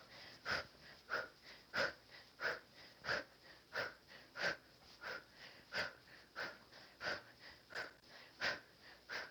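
Sharp, rhythmic breaths pushed out with each uppercut punch, about one and a half a second, steady throughout.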